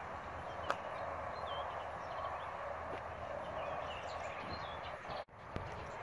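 Outdoor ambience: a steady hiss with a few faint, short bird chirps. The sound cuts out for an instant about five seconds in.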